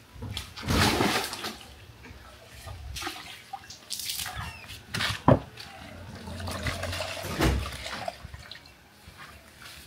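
Water sloshing and splashing in several irregular bursts, with a sharp knock about five seconds in.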